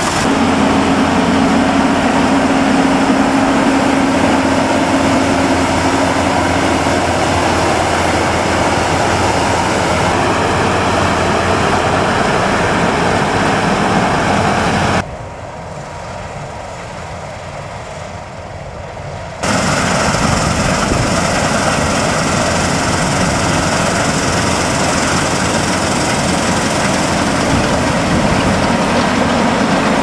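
New Holland CR8.80 combine harvester running as it cuts and threshes grain: a steady, loud mechanical drone of engine and machinery. About halfway through it turns fainter and thinner for roughly four seconds, heard from far across the field, then comes back up close.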